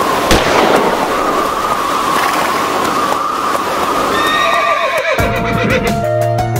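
A horse whinnying over a loud rushing noise, a sound effect in a western-style intro. Music with a steady beat comes in about five seconds in.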